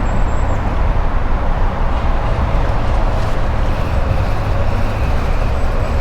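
Steady rumble of highway traffic passing overhead, an even roar with no breaks.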